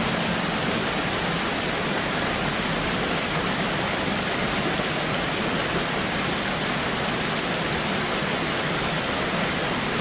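Waterfall: a steady, even rush of falling water.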